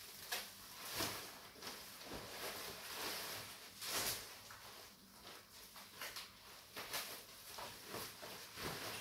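Packing material (torn wrapping, paper and tape) rustling and crinkling as hands dig through it, with irregular small crackles.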